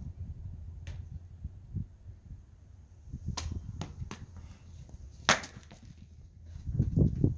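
Machete chopping through a yellow squash: a handful of sharp, brief chops, the loudest about five seconds in, followed by low thuds near the end.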